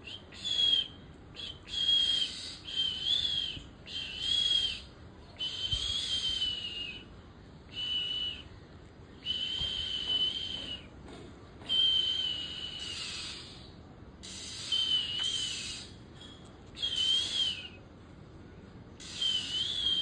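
A fledgling oriental magpie-robin calls over and over: about eleven drawn-out, wavering calls, each up to a second and a half long, with short gaps between.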